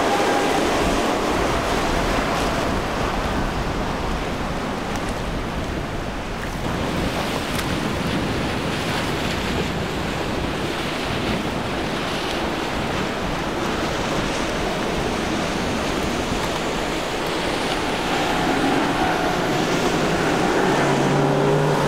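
Rushing, churning water from boat wakes and inlet chop, with wind buffeting the microphone and the hum of passing outboard motors underneath. Near the end a steadier, clearer engine tone comes in as twin Suzuki 150 hp outboards run close by.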